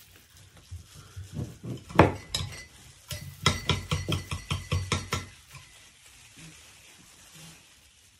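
Kitchen knife cutting a lime on a cutting board: a few light knocks, a sharp knock about two seconds in, then a quick run of about a dozen chops, around six a second.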